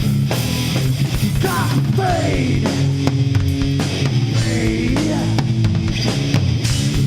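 Rock band playing live: drum kit and bass under an electric lead guitar whose notes swoop down and back up in slides and bends.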